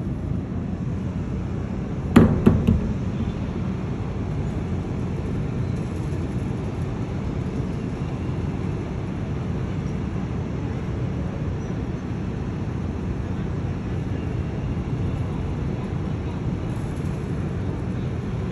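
Steady low rumble aboard a docking cruise ship. About two seconds in, a sharp knock is followed quickly by two lighter knocks.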